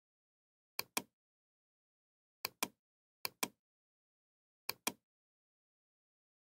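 Computer mouse clicking four times, each click a sharp press-and-release pair, with dead silence in between.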